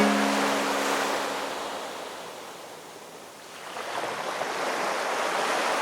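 Ocean surf washing on a beach: the rush of one wave dies down over the first three seconds and the next swells up about four seconds in. The last held note of background ukulele music fades out at the start.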